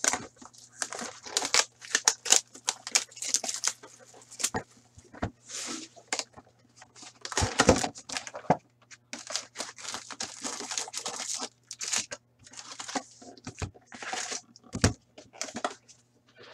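A box of hockey trading cards being unpacked by hand: packaging tearing and wrapped card packs crinkling in irregular rustles, with a few soft knocks as the box and packs are set down, the loudest about halfway through.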